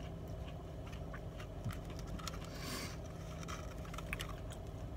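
Faint chewing: soft, scattered mouth clicks over the steady low hum of a car cabin, with a brief hiss a little past halfway.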